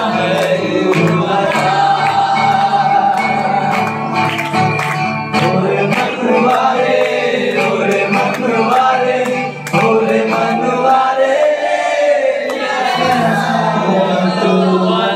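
A man singing a song into a microphone while strumming an acoustic guitar.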